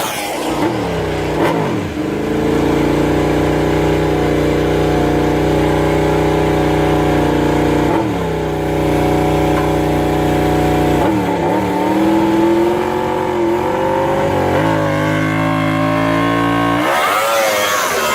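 MotoGP racing motorcycle engine running hard at high revs. Its pitch dips sharply several times, around the 1, 8, 11 and 14 second marks, then climbs again, as on downshifts and acceleration out of corners.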